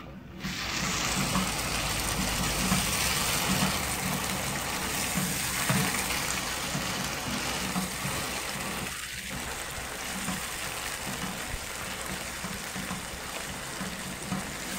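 Tomato and onion sauce sizzling in a frying pan while it is stirred with a wooden spoon: a steady hiss that starts suddenly about half a second in.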